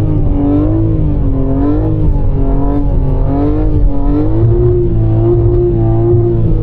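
BMW G80 M3 Competition's twin-turbo inline-six running at moderate revs, heard from inside the cabin, its note rising and falling slightly with the throttle.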